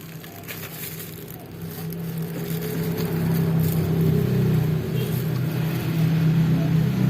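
Vehicle engine running steadily at an even pitch, growing louder over the first few seconds and then holding.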